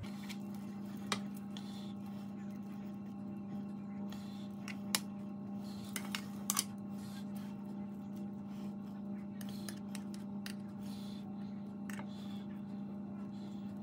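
Metal spoon clinking now and then against a stainless steel saucepan and a glass dish while mashed potato is scooped and spread onto a pie, a few sharp clicks in all, over a steady low hum.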